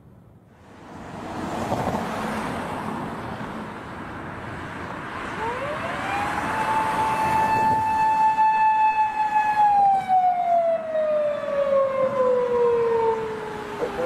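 Japanese police car siren sounding one long wail: the pitch rises over about a second starting some five seconds in, holds a steady note for about three seconds, then slowly falls over the last four seconds. Vehicle noise swells up about a second in and runs underneath.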